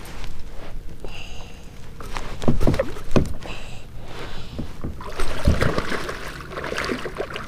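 Knocks and thumps of gear being handled in a plastic fishing kayak, with water splashing against the side of the hull near the end. Two short high-pitched squeaks a couple of seconds apart.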